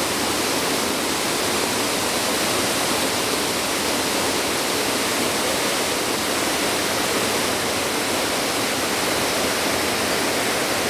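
Small forest stream rushing over rocks in shallow rapids: a steady, even rush of water with no breaks.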